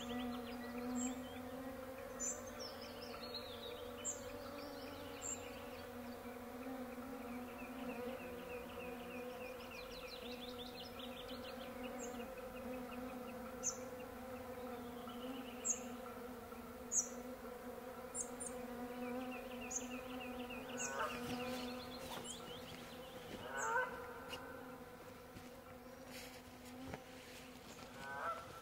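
Swarm of mosquitoes whining around the microphone, a steady multi-pitched hum. Birds call over it, with short high chirps every second or two and a few descending trilled phrases.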